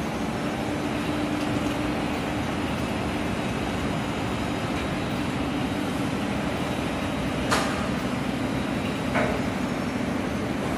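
Steady drone of machinery in an industrial laundry running a continuous batch tunnel washer line, with a low steady hum underneath. Two short knocks are heard in the second half.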